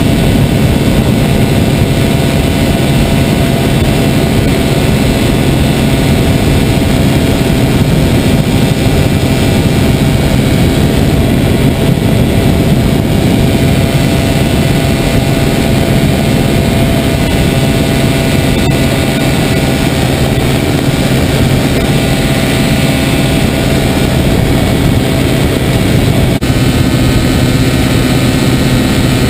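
Small engine and propeller of a foot-launched powered hang glider droning steadily in flight: the high, buzzing mosquito-like noise of the harness motor at a constant throttle. Its tone shifts slightly near the end.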